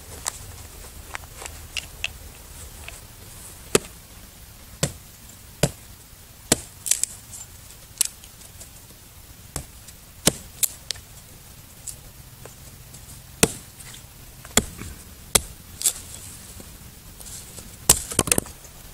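Hatchet chopping wood on a log: sharp, separate strikes at an uneven pace, with a quick run of several blows near the end.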